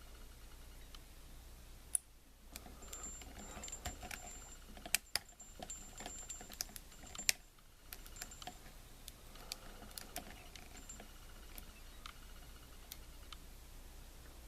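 Lock pick and tension wrench working the pin stack of a small brass padlock: faint scraping with scattered small clicks, a few sharper ones, as the pins are set.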